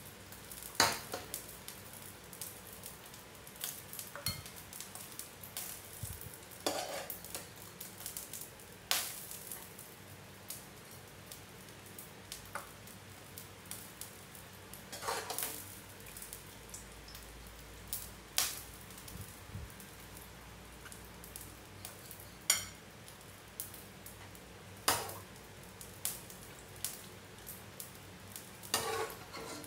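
Metal spoon clinking and scraping against a cooking pot and a ceramic plate as cooked fish, eggplant and sauce are ladled out, a sharp clink every few seconds over a faint steady hiss.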